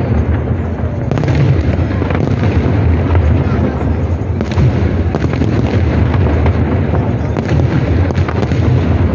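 Aerial firework shells bursting in a continuous barrage of overlapping booms and pops, with a large crowd's voices underneath.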